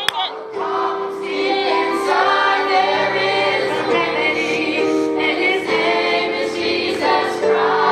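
Mixed church choir of men and women singing a gospel hymn together over long held accompaniment chords.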